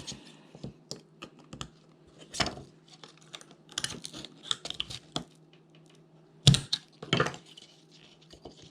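Small clicks, taps and scrapes of tools and plastic and metal parts being worked on a cordless phone handset's circuit board during disassembly. Two louder knocks come about six and a half and seven seconds in, over a faint steady hum.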